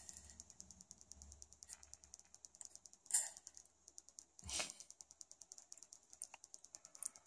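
Faint, rapid, even ticking, with a soft brief rustle about three seconds in and a light knock about halfway through.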